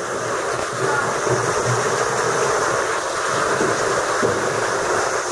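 Steady rush of water inside a sea cave, from a waterfall pouring off the rock into the sea.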